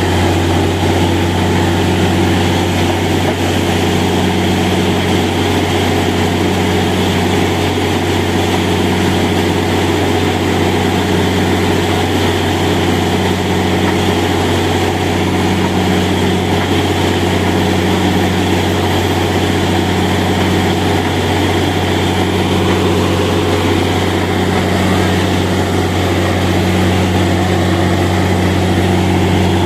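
Borewell drilling rig running steadily with a deep engine drone, one tone in it swelling and fading about every two seconds.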